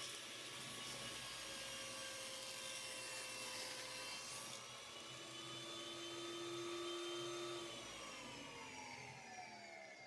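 Table saw running while a black walnut board is crosscut, the cutting hiss lasting about the first four and a half seconds. Near the end the motor is switched off and its pitch falls as the blade coasts down.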